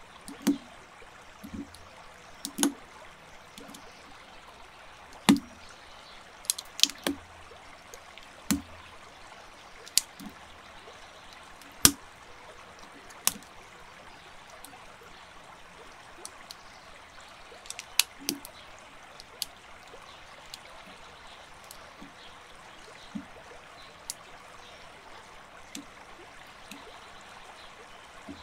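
Plastic building bricks and minifigure parts clicking and snapping together as a set is assembled: irregular sharp clicks, a few seconds apart or in quick pairs, over a steady hiss.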